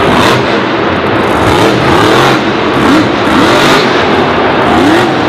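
Monster truck's supercharged V8 engine revving up and down over and over while the truck balances on its front wheels in a nose wheelie.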